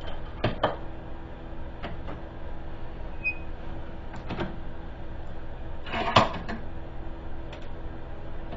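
Scattered metal knocks and clicks of a bolt being set and clamped in a bench vise, the loudest a little after six seconds in, over a steady low hum.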